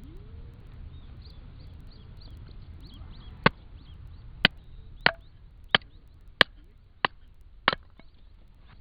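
A blade chopping into wood: seven sharp strikes about two-thirds of a second apart, starting about three and a half seconds in.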